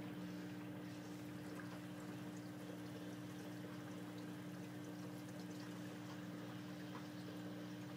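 Aquarium filter running: water pouring and trickling steadily into the goldfish tank, over a steady low hum.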